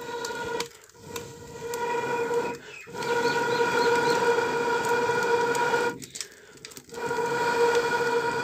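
Someone blowing hard on a wood cooking fire to get it going, in three long blows with short pauses between them. Each blow carries a steady whistling tone over a breathy rush.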